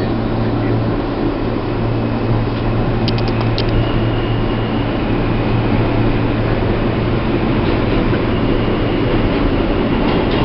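New York City subway train heard from inside the car as it pulls out of the station into the tunnel: a steady rumble with a low hum throughout, and a quick run of about five sharp clicks about three seconds in.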